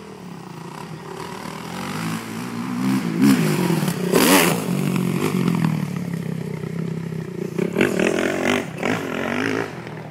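Dirt bike engines revving, the pitch rising and falling as the riders work the throttle. It is loudest around four seconds in, with another spell of revving late on before it drops away.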